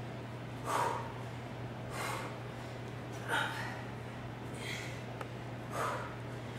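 A woman breathing hard while exercising: a sharp, snort-like exhale about every second and a quarter, five in all, in time with her leg lifts. A steady low hum runs underneath.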